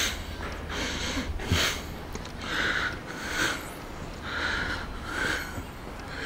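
A person breathing close to the microphone, with short noisy breaths every second or so.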